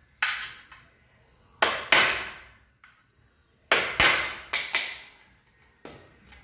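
A series of about eight sharp knocks, mostly in quick pairs, each ringing out briefly.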